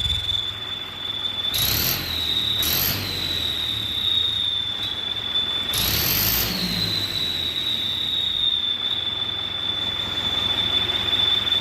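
Turbo whistle fitted in a tractor's exhaust silencer giving a steady high-pitched whistle over the tractor engine running. Three times the throttle is blipped, and the whistle rises a little in pitch with a rush of exhaust hiss, twice in quick succession near the start and once longer about six seconds in.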